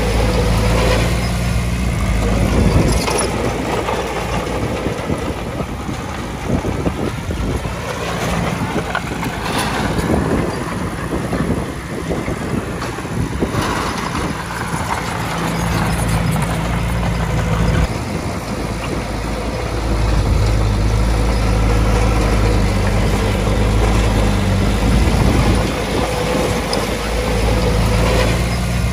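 Diesel engine of heavy earthmoving machinery running, its low note growing stronger and weaker as the work goes on, with a few sharp knocks.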